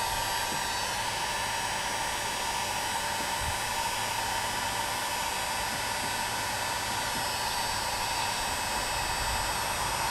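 Electric heat gun running steadily: a constant rushing hiss from its fan with a steady whine underneath. It is blowing hot air onto a crack in a polyethylene kayak hull to soften the plastic for welding.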